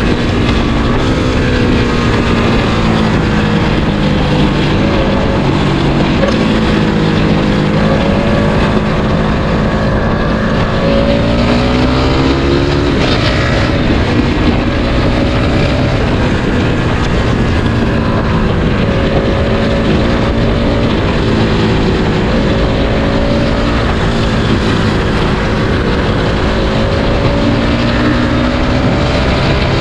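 Suzuki Satria FU 150 fuel-injected single-cylinder engine pulling under way, its revs rising and falling as the bike rides, with a quick upshift on the quickshifter about 13 seconds in that drops the revs at once. Wind noise over the microphone throughout.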